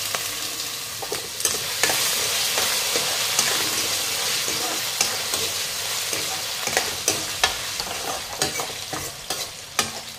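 Diced potatoes sizzling in hot oil in a steel kadai, stirred with a steel ladle that clinks and scrapes against the pan. The sizzle eases a little near the end.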